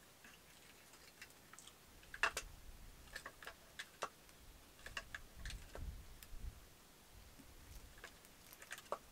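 Scattered light clicks and taps from a split bamboo tube being handled, about a dozen, irregularly spaced, with the sharpest about two seconds in and a few soft low thumps near the middle.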